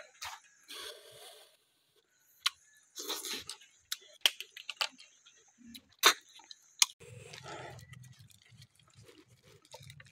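Snails being sucked and slurped out of their shells by mouth, in short noisy bursts, with sharp clicks of shells knocking against each other and the bowl. A low steady hum comes in about seven seconds in.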